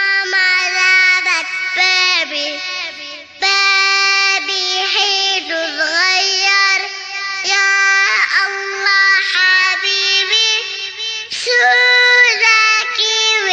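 A child singing a children's song melody in a high voice over music, in phrases with short breaks.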